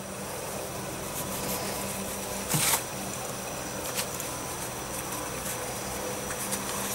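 Paper towel crinkling and a cotton bandage rustling as a pork loin is wrapped and squeezed tight by hand, with a louder crinkle about two and a half seconds in.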